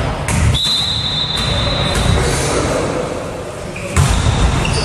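Referee's whistle in a volleyball match, one held high blast of about a second and a half, typical of the signal that releases the next serve. Near the end there is a single thud.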